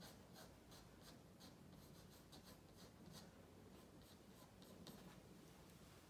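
Faint scratching of a pencil sketching on drawing paper: quick short strokes, a few a second, thinning out about five seconds in as the hand lifts from the page.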